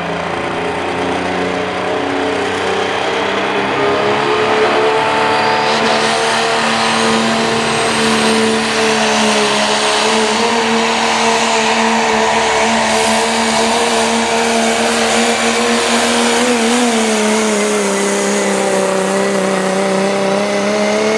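Cummins turbo-diesel pickup in the 2.6 diesel four-wheel-drive class, running at full throttle while dragging a weight-transfer pulling sled. The engine holds a steady high pitch through most of the pull, dips briefly about three-quarters of the way through, then drops away near the end as the throttle comes off.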